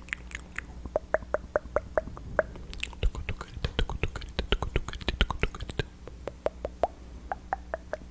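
ASMR mouth sounds close into a foam-covered microphone: rapid tongue clicks and mouth pops, about five or six a second, some with a short hollow pitch and a run of heavier low pops in the middle.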